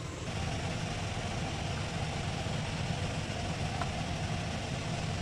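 A steady low rumbling hum with a hiss over it, unchanging throughout, with one faint tick about four seconds in.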